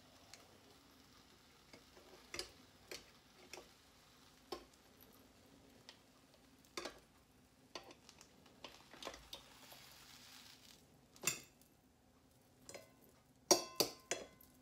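Fork and spatula clicking and scraping against the hot nonstick plates of an electric waffle iron as a cooked omelet is pried loose and lifted out, with a faint sizzle. A quick cluster of louder clicks near the end as it goes onto a ceramic plate.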